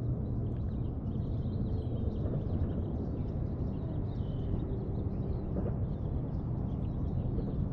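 Outdoor ambience: a steady low rumble with faint, scattered high bird chirps.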